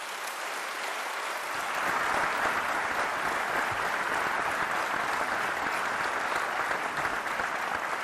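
Large audience applauding, building over the first two seconds and then holding steady.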